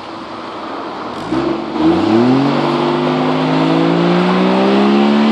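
Toyota sedan's exhaust, fitted with a baffle insert, idling and then revved up about a second in and held at high engine speed, the pitch still creeping upward, for a stationary exhaust noise test with a sound level meter at the tailpipe.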